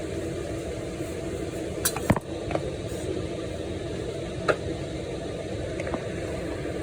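A few sharp clinks of dishes and kitchen utensils, a quick cluster about two seconds in and single ones later, over a steady low mechanical hum.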